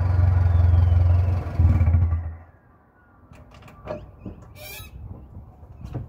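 Mitsubishi Triton 4D56T turbo-diesel four-cylinder, muffler deleted on a 2.5-inch mild steel pipe, running steadily, then shut off about two and a half seconds in, its hum stopping abruptly. A thin high whine slides down in pitch through the run and fades just after shutdown. Then a few faint knocks and a short squawk.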